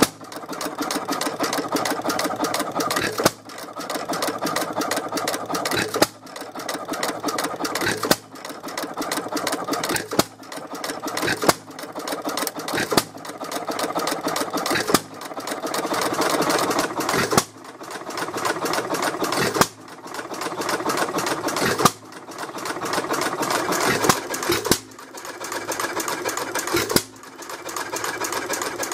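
A 1915 Fairbanks-Morse Model Z hit-and-miss engine running. A sharp bang comes every two seconds or so, unevenly spaced: the firing strokes. A fast rattling clatter of the engine's works fills the coasting strokes between them.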